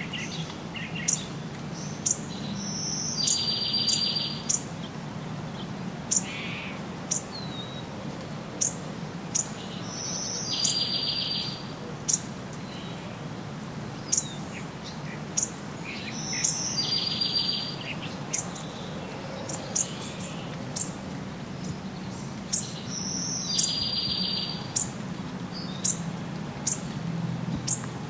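Birds calling. Short high chirps repeat every second or two, and a buzzy, trilled call of about a second comes four times, roughly seven seconds apart, over a steady low background noise.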